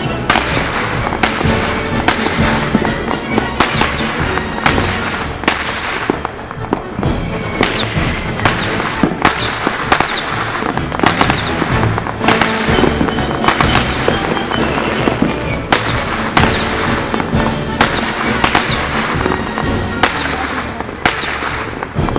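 Fireworks display: a steady barrage of aerial shells bursting with sharp bangs, about one to two a second, over continuous crackling and sizzling.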